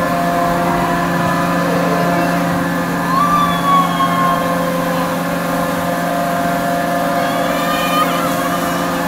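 Enterprise amusement ride running as its wheel spins: a steady mechanical drone of several held tones from its drive. Brief gliding higher sounds come about three seconds in and again near the end.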